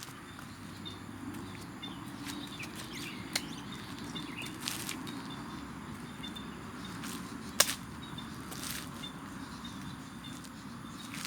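Outdoor ambience with small birds chirping over a steady low hum, broken by a few sharp clicks, the loudest about seven and a half seconds in.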